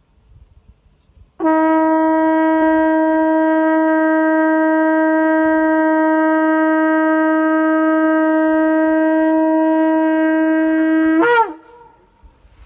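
Shofar blown in one long, steady blast of about ten seconds on a single loud note, its pitch flicking briefly just before it stops.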